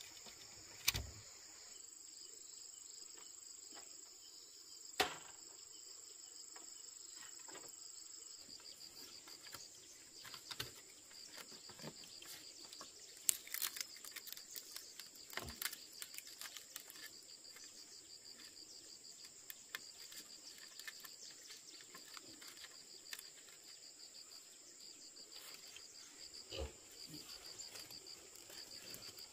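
Steady high-pitched insect trilling, with scattered knocks and clicks, a few of them sharp.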